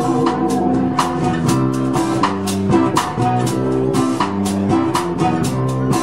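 Live band music led by a strummed acoustic guitar, with steady rhythmic strokes and sustained notes throughout.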